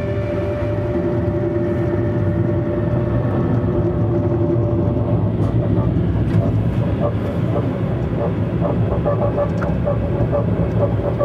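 TGV high-speed train running at speed, heard from inside: a steady low rumble with a held whine that fades out about five seconds in.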